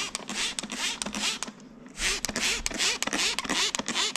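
Trigger spray bottle of degreaser pumped rapidly, a quick run of short spray hisses about four a second, with a brief pause near the middle.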